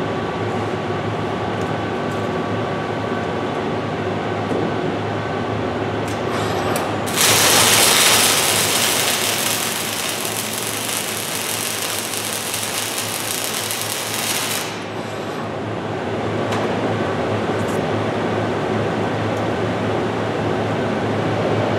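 FANUC robot's MIG (gas metal arc) welding arc on steel: it strikes about seven seconds in and burns with a steady, loud hiss for about seven and a half seconds, then cuts off when the bead ends. Before and after the arc, a steady machine hum.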